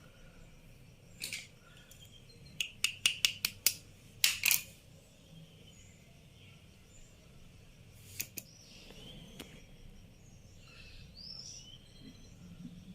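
Sharp snips and clicks of a hand tool working the wires of a network cable: a quick run of about six in a second, with a few single ones before and after. Birds chirp faintly in the background.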